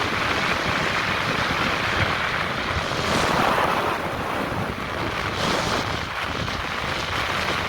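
Strong wind in a snowstorm rushing steadily and buffeting the microphone, with a louder gust about three seconds in.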